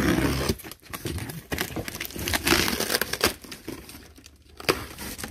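Packaging rustling and crinkling as items are handled and unpacked from boxes, with a few short knocks.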